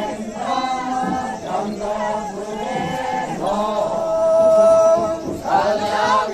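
A group of Naga tribal men and women chanting a traditional folk song together, in long held notes sung phrase after phrase with brief breaks between them.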